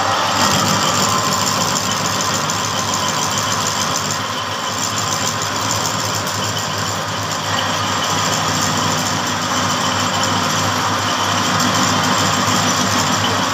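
Belt-driven metal lathe running steadily, spinning a tractor spindle shaft in its chuck: a constant low hum under a dense hiss, easing slightly for a few seconds mid-way.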